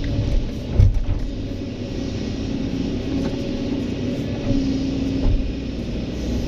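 A heavy diesel engine on construction machinery running steadily, its pitch shifting a little now and then. There is a sharp thump a little under a second in.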